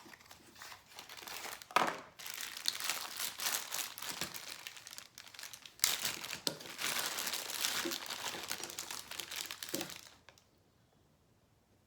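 Packaging of a small accessory pack crinkling and crackling as it is handled and opened, with a few sharper crackles, stopping abruptly near the end.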